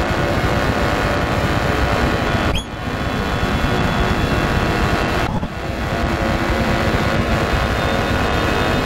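Live electroacoustic performance: a dense electronic drone with a low rumble and many sustained tones layered over it, driven by grains dropped by hand. It thins out for a moment twice, about two and a half and five and a half seconds in.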